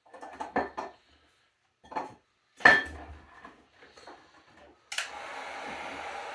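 Hard objects clatter and knock as they are handled on a bench, with the loudest clink about two and a half seconds in. About five seconds in, a heat gun switches on and runs with a steady blowing rush, used to soften a thin plastic sheet so it can be bent.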